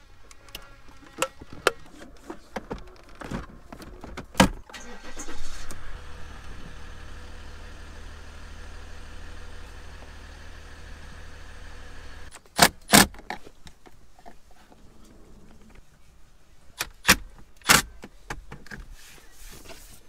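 Plastic dash trim panels clicking and snapping into place. About five seconds in, a Ram pickup's engine cranks and starts, runs steadily for about seven seconds, then cuts off suddenly, followed by a few more sharp clicks and knocks.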